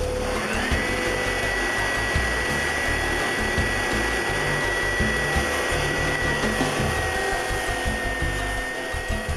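Parkside belt sander, clamped belt-up as a stationary sander, running together with its dust-extraction vacuum. Their motor whines rise in pitch as they spin up, the second one about half a second in, then hold steady while the inlaid wooden plate is sanded flush.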